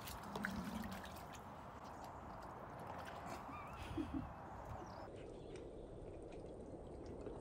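Faint splashing and trickling of a dog nosing and lapping in shallow muddy floodwater, with small scattered clicks of water.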